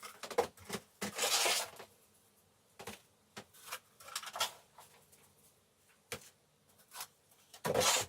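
Small seedling pots being handled and set out: scattered light knocks and taps with brief rustles, a louder rustle about a second in and another near the end.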